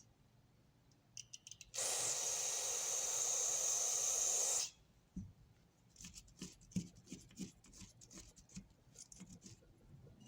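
A steady spray hiss lasting about three seconds, cutting off suddenly, while the old grease is being cleaned off the ratchet's parts. It is followed by light clicking and scraping of small metal parts being handled.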